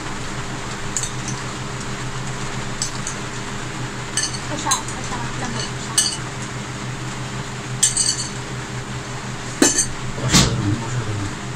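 A metal spoon clinking against a curry bowl and plates as curry is served: scattered sharp clinks, about eight, the loudest about ten seconds in, over a steady background hum.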